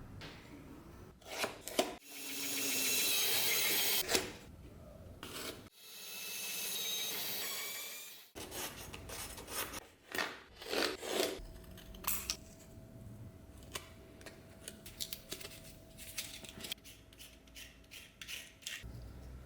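Abrasive rubbing and scraping on rusty metal during hand cleaning. Two long hissing passes of about two seconds each swell and fade, followed by irregular short scrapes and clicks.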